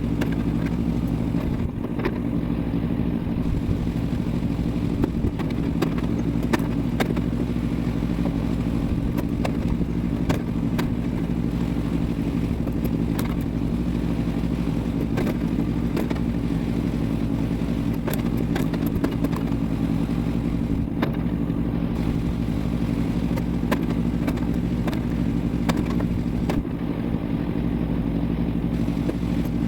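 Kinetic log splitter's small gasoline engine running at a steady speed, with scattered clicks and knocks over it.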